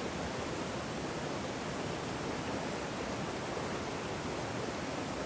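Steady rush of a mountain stream running over boulders and shallow riffles, an even, unbroken noise.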